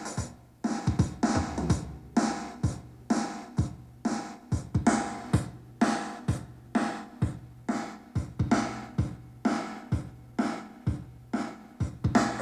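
JBL Flip 4 portable Bluetooth speaker playing a bass-heavy electronic drum track: deep kick drums that drop in pitch, about two beats a second, with snare and hi-hat over them.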